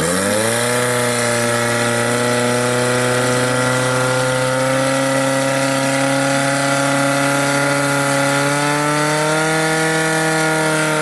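Portable fire pump's engine revving up to full throttle, then running steadily at high revs as it drives water through the hoses to the nozzles; its pitch climbs a little near the end.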